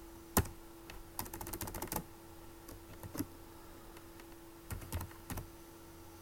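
Typing on a computer keyboard: one key press, then a quick run of keystrokes, a few scattered presses, a pause of about a second and a half, and a few more keys near the end, over a faint steady hum.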